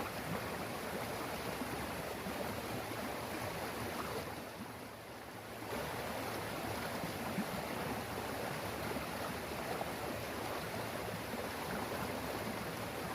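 Steady rush of flowing stream water, dipping briefly about four to five seconds in.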